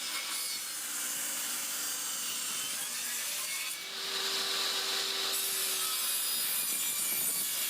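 Power saw ripping a 2x3 board lengthwise down the center: a steady cutting hiss over a faint motor hum, whose tone shifts higher about four seconds in.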